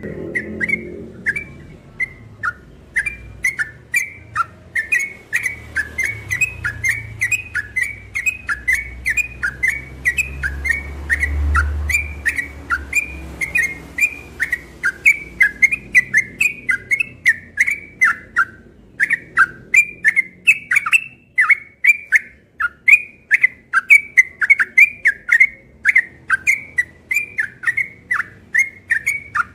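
Caged yellow-vented bulbul (trucukan) singing nonstop in a rapid run of short, sharp whistled notes, about three to four a second, mostly sliding downward, with one brief break a little past the middle. This unbroken delivery is the 'ropel' style that bird keepers prize.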